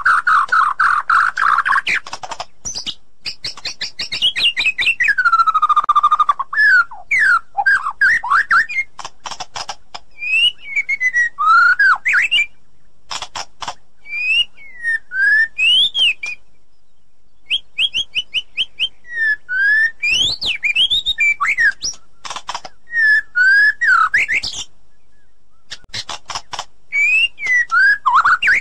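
White-rumped shama (murai batu) singing a loud, varied song: clear whistles that slide up and down, mixed with fast runs of short notes and clicks, in phrases broken by short pauses.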